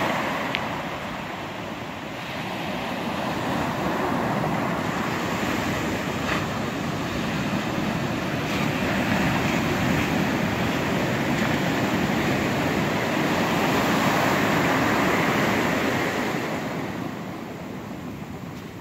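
Ocean surf breaking and washing up a sandy beach: a continuous rushing hiss that swells and eases as the waves come in.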